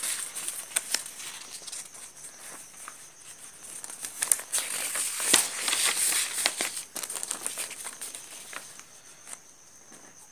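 Paper rustling and crinkling as a notebook page is turned over and flattened, with scattered small clicks and a louder rustling stretch about four to seven seconds in.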